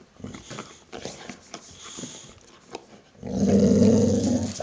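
A dog tugging on a plush toy gives a loud growl lasting about a second, starting a little over three seconds in; before that only faint scuffling and mouthing sounds.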